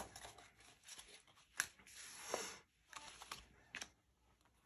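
Faint handling of tarot cards: a few light clicks and taps as cards are sorted and set down, with a soft slide of card against card about two seconds in.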